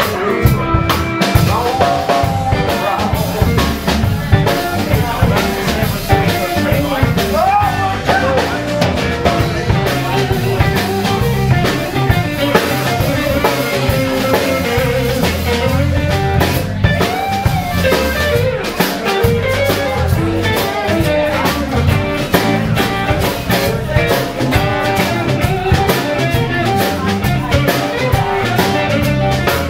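Live blues band playing a slow blues: electric guitars and bass guitar over a drum kit, in a mostly instrumental passage.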